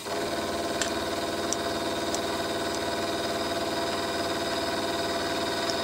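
Warco WM16B milling machine running steadily while the cutter traverses back across the block, taking a light spring pass. A few light ticks are heard here and there.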